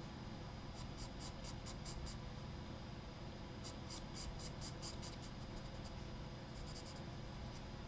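Charcoal pencil scratching on sketchbook paper in runs of short, quick strokes, about five a second, with pauses between the runs.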